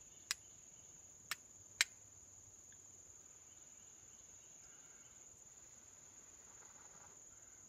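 Three sharp strikes of a steel fire striker against a piece of flint, the first just after the start and two more about a second later, half a second apart, throwing sparks that catch on char cloth. A steady high-pitched cricket drone runs underneath.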